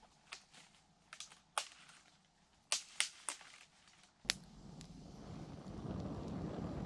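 Freshly lit campfire of sticks and dry grass giving a few sharp, scattered pops and snaps, about six in four seconds. About four seconds in, a louder, dense rushing crackle comes in suddenly and keeps swelling.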